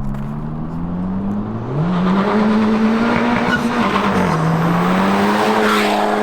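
Honda Civic Type R's turbocharged 2.0-litre four-cylinder, fitted with a PRL high-flow intake, under hard acceleration. The engine note climbs sharply about two seconds in and stays high. It dips briefly near the middle and then climbs again, with a loud intake rush swelling toward the end.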